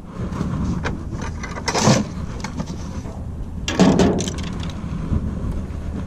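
Wind rumbling on a camera microphone, with two louder scraping, knocking handling noises about two and four seconds in as fishing rods are lifted from against the side of a pickup truck.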